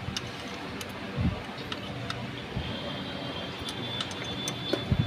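Sparse light clicks and two soft knocks of hand tools and fittings as the carburettor is bolted back onto a Honda Aviator scooter engine, over a steady background hum, with a faint thin high whine starting a little past halfway.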